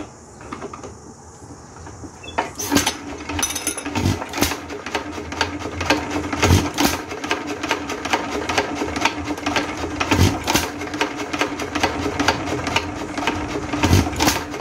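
Vintage Associated Chore Boy hit-and-miss engine starting up about two and a half seconds in, then running with a fast, even clatter and a heavy clonk every two to four seconds. The clonk is the valve-rod noise the owner is adjusting to reduce, and the exhaust passes through a muffler made from a gas can.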